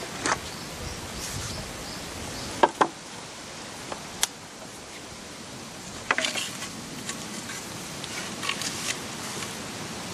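Split bamboo halves being laid on the ground and knocking against each other. There are sharp clacks, a loud pair about two and a half seconds in, then clusters of lighter clatter later on.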